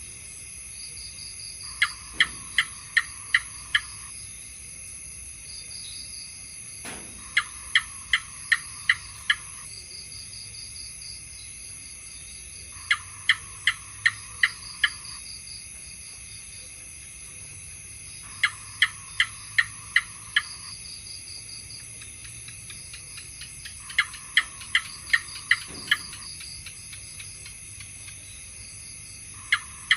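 House gecko calling its repeated 'chuck-chuck' chirp: runs of six or seven sharp chirps, about four a second, that come back every five to six seconds. A steady high-pitched drone lies underneath.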